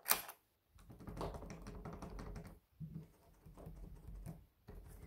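Patio door handles and lock mechanism being worked. A sharp click comes right at the start, then two runs of small rapid clicks and rattles.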